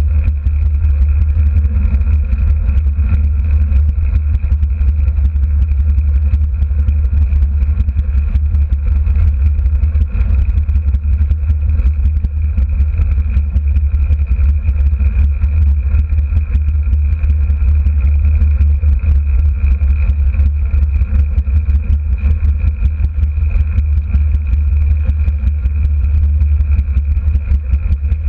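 A derny's small motor running steadily at a constant pace, with a steady high whine over a deep rumble.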